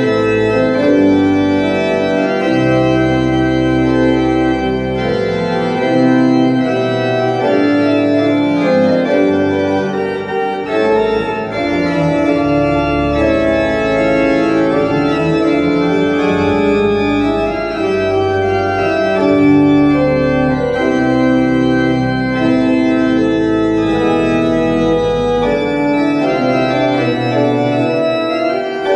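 Church pipe organ playing a hymn in full held chords, with deep pedal bass notes that come in and drop out.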